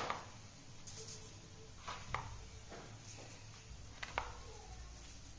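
A few faint, light clicks and taps of a plastic spice container being handled, about two seconds in and again about four seconds in, over a low hum.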